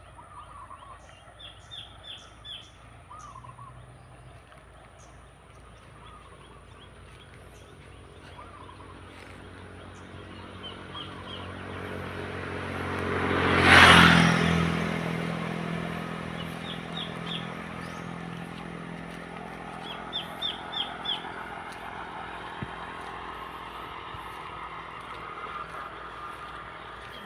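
A motor vehicle passes by, growing louder to a peak about halfway through and then fading away slowly. Birds chirp in short quick runs throughout.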